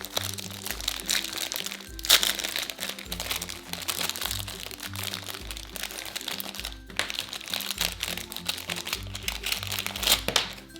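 Plastic packaging crinkling and crackling in irregular bursts as a Pez candy dispenser is unwrapped by hand, over background music.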